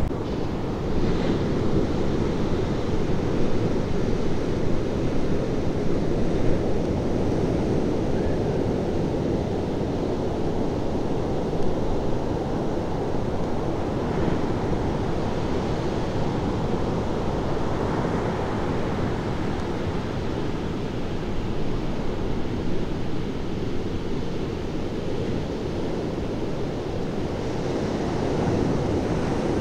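Ocean surf breaking in a steady, low rush of whitewater, with wind blowing across the microphone.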